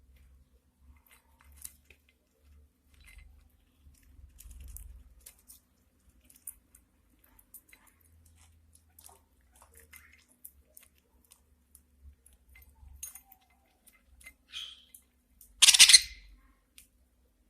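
Budgies eating seed: scattered small clicks and cracks of beaks husking seeds, with one brief louder burst near the end.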